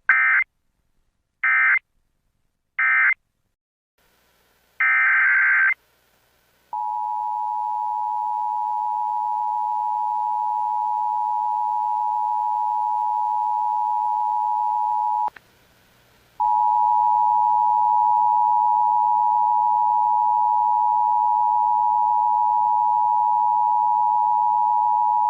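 Emergency Alert System digital data: three short SAME data bursts (the end-of-message code), then one longer data burst. After that comes the steady two-tone EAS attention signal, which announces the tornado warning that follows. The tone cuts off with a click about fifteen seconds in and resumes about a second later.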